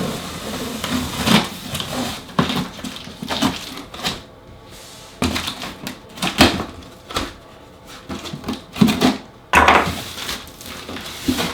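A cardboard shipping box being opened and unpacked by hand: irregular knocks, clicks and rustling of cardboard flaps and packing.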